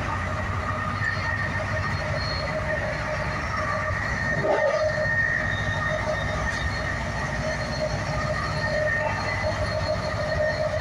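Inside a moving NJ Transit bi-level passenger car: a steady low rumble from the running train with several high, wavering tones over it. There is a brief louder jolt about four and a half seconds in.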